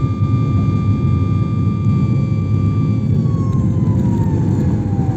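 Jet airliner cabin noise on final approach: a steady low rumble of engine and air noise under a high engine whine. About three seconds in, the whine starts to fall in pitch as the engines spool down.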